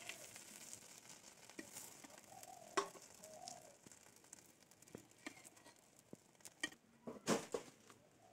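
Faint sizzling of banana-leaf fish parcels frying on an iron tawa, with a few sharp clicks and scrapes of a metal spatula on the pan and on a steel plate as the parcels are lifted off. The loudest clicks come about seven seconds in.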